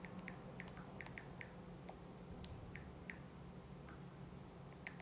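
Faint, irregular light taps and clicks from a smartphone being typed on, over a low steady room hum.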